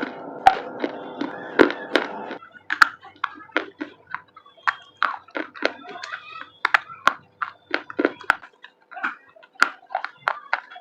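Dry baked clay crunching and snapping as it is crushed: a run of sharp, irregular crunches, two or three a second.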